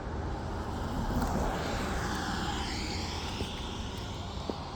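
A vehicle going by: a steady rush of noise that swells about a second in and slowly fades.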